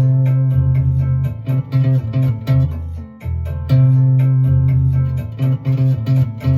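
Music: a lead line improvising on the single note C, the minor third, over an A minor backing track with bass notes and a steady beat.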